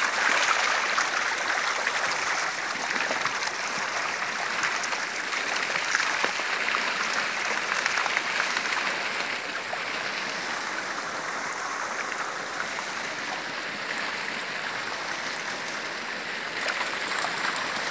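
Water rushing and splashing steadily through a concrete inflow channel into a fish pond, a little louder at first and again near the end.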